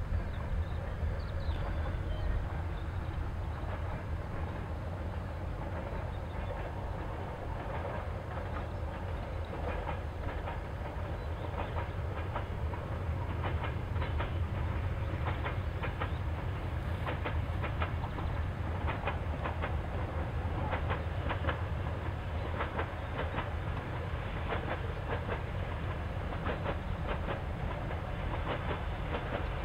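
Passenger train hauled by a 2TE10M diesel locomotive running past, with a steady low rumble and rapid clickety-clack of wheels over rail joints that gets denser after the first several seconds.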